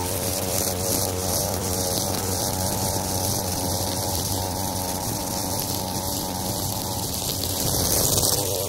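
Gas-powered string trimmer running at high speed, its line cutting through tall, overgrown grass; a little louder near the end.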